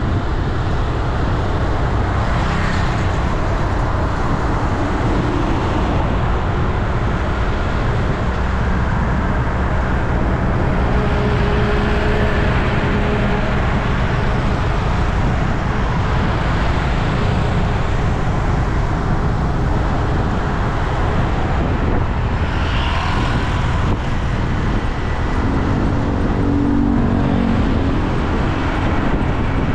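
Steady road traffic with vehicles passing one after another, an engine drone and tyre noise rising and falling several times.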